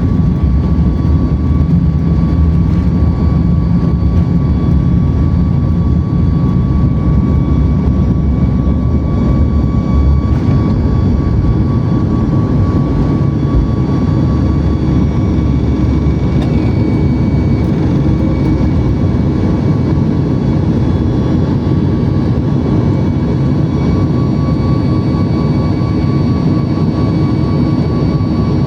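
Boeing 737 MAX's CFM LEAP-1B jet engines running at takeoff thrust: a loud, steady jet noise with a few steady high whining tones over it. The deep low rumble under it is heaviest for the first ten seconds or so, then eases a little.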